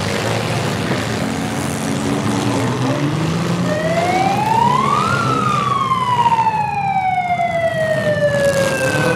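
A siren wailing in a slow rise and fall: it starts about four seconds in, climbs, sinks gradually, and begins to climb again near the end. Under it runs the low rumble of demolition-derby car engines.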